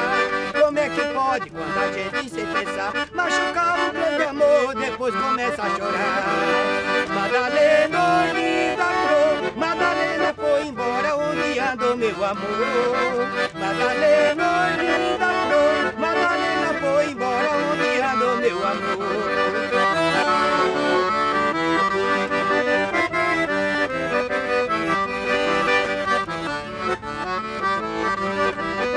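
Piano accordion playing a tune, with a melody moving over held chords throughout.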